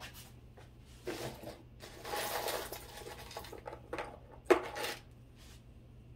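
Costume jewelry being handled on a table: rustling and clinking of beads and small metal and plastic pieces, then a few short clicks, the loudest a sharp clack about four and a half seconds in.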